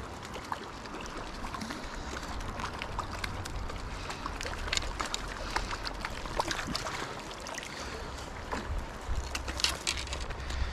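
Hooked fish splashing and thrashing at the water's surface as it is netted, irregular sharp splashes over the steady rush of the river.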